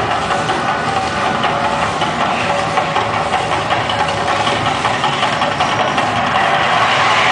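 Man-made volcano attraction erupting: a loud, steady, rumbling roar with no break.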